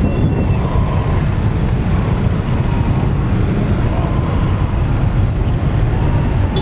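Busy street traffic heard from a moving bicycle: motorcycles and motorized tricycles running close by, under a steady low rumble.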